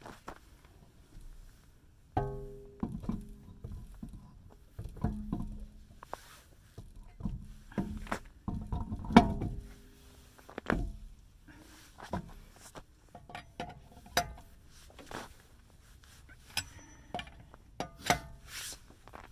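Light plucked-string background music. Over it come scattered metallic clinks and knocks of wheel nuts and a cross wrench as an alloy wheel is mounted on the hub.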